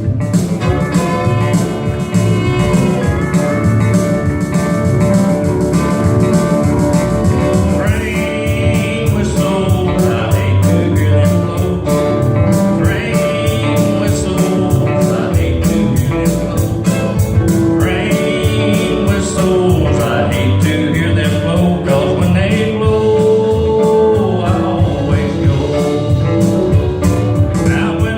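A live band playing a song with guitar and drums: an instrumental opening, then a man singing from about eight seconds in.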